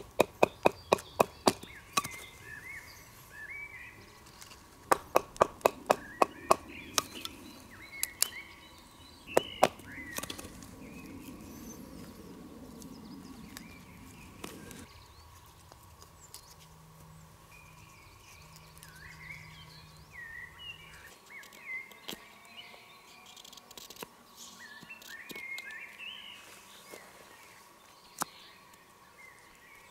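Knife being batoned with a birch-log baton to split small wooden sticks: a quick run of sharp wooden knocks, about four a second, at the start and again about five seconds in, then a few single strikes near ten seconds. Birds chirp throughout.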